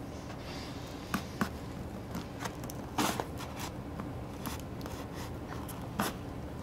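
Scissors slitting the packing tape along the seam of a cardboard box: scattered snips and scrapes, the loudest about three seconds in.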